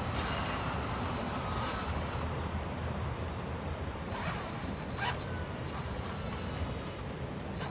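Small electric winch on an RC scale crawler whining as it reels in line and drags the truck up a hill, running in stretches: on, a pause of about two seconds, on again, then once more near the end.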